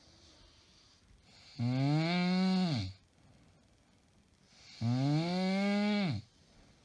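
A woman snoring very loudly: two long droning snores about three seconds apart, each holding a steady buzzing tone, then dropping in pitch as it cuts off. A faint breathy rise comes just before each one.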